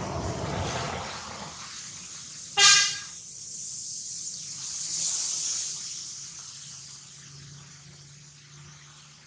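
A short vehicle horn honk, one steady note about half a second long, is the loudest sound, coming about two and a half seconds in over a steady outdoor hiss. A faint low engine hum follows near the end.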